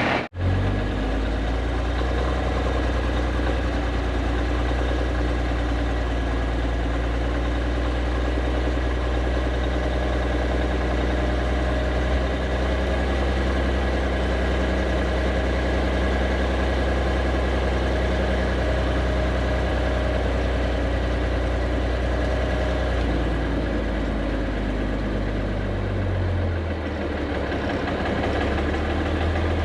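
Heavy diesel engine of earth-moving equipment running steadily, its tone shifting about two-thirds of the way through and again near the end.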